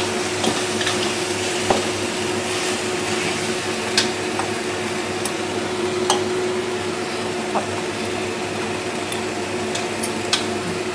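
Water boiling in a large aluminium pot, a steady hiss with a low hum under it, with scattered light clicks and taps as onions and dried chillies are spooned from a steel bowl and dropped in.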